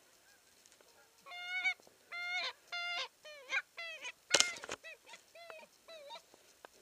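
A flock of wild geese honking in flight: a dozen or so short calls in quick succession, some sliding down or up in pitch, thinning out near the end. A little past the middle a brief cluster of sharp clicks, the loudest sound, cuts across the calls.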